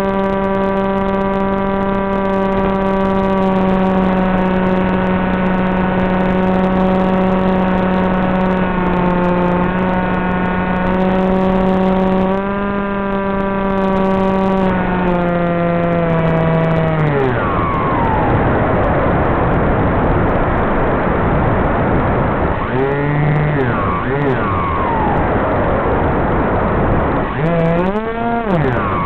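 Brushless electric motor and propeller of an FPV flying wing (Turnigy 2826-2200kv) buzzing at steady throttle, then throttled back about seventeen seconds in, leaving rushing wind noise as the wing glides down to land. The motor briefly revs up and down twice near the end.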